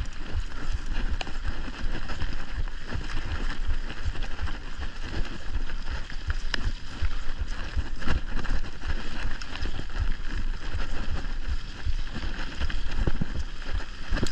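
Mountain bike riding over a dirt trail. The tyres crunch over dirt and leaf litter, the bike gives off frequent small rattles and knocks, and wind buffets the microphone with a low rumble.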